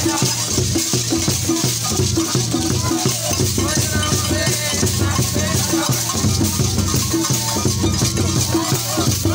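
Traditional Konkomba Kinachun dance music: drumming with a shaken rattle sound over it, keeping a fast, steady rhythm.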